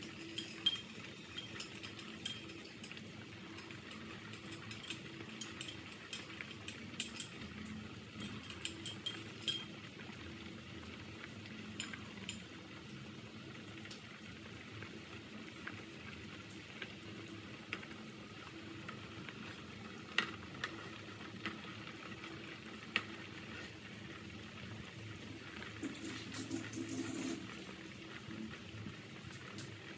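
Pork bone and vegetable soup boiling in a metal pot: a steady bubbling hiss with scattered sharp pops and crackles, most of them in the first ten seconds.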